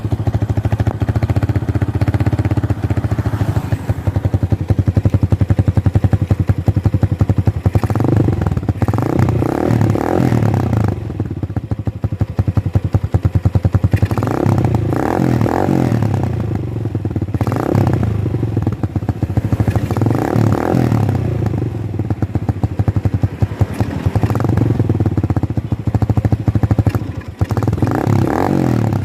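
Rusi DL150 motorcycle engine running through its muffler, revved several times so the exhaust note rises and falls between stretches of steady running.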